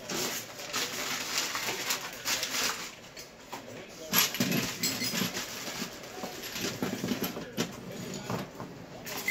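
Crinkling and rustling of a plastic parts bag and packing being handled, with a few sharp knocks, the loudest about four seconds in.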